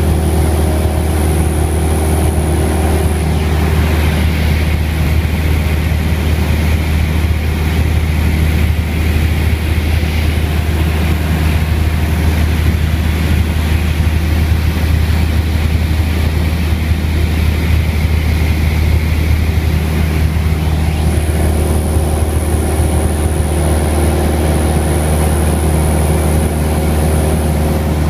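Cessna 172M's four-cylinder Lycoming engine and propeller droning steadily in cruise flight, heard from inside the cabin as a loud, even, low hum.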